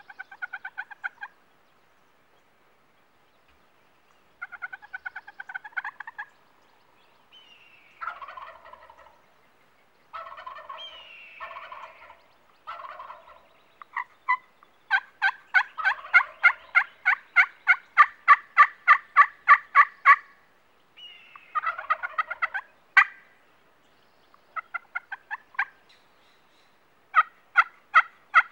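Wild turkeys (Merriam's) calling: short runs of raspy yelping notes come in groups, with a long even series of about five a second in the middle and another run near the end.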